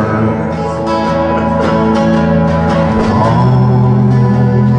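A country ballad played live: acoustic guitar strumming under a harmonica fill between sung lines, as a voice finishes a sung line at the start.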